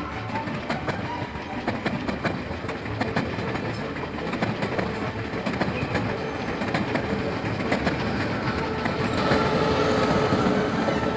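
Passenger train coaches rolling past, wheels clacking steadily over the rail joints. The sound grows louder about nine seconds in.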